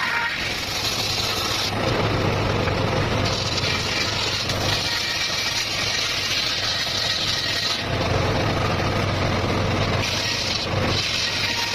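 Circular saw rig running steadily with a low engine-like hum, its blade cutting through wood; the high cutting noise changes character every few seconds as the cut goes on.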